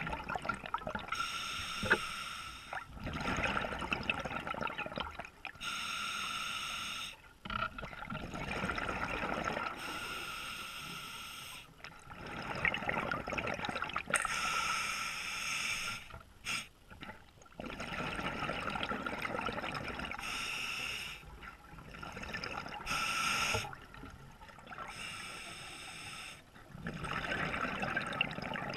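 A scuba diver breathing underwater through an open-circuit regulator: a hissing inhalation alternates with a bubbling, gurgling exhalation, about one breath every four to five seconds.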